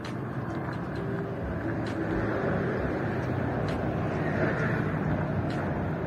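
Steady road traffic noise that swells in the middle as a vehicle passes, with a faint tick about every two seconds.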